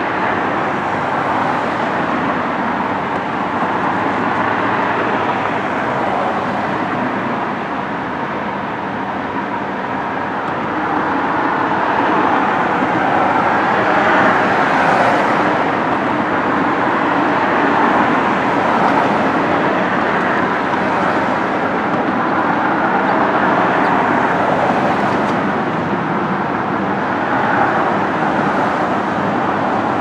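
Steady motor-vehicle noise like road traffic, a continuous rush that swells and eases every few seconds.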